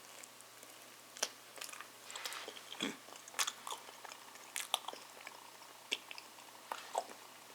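A person biting into and chewing a microwaved French bread pizza, a series of short, irregular crunches from the crisp crust.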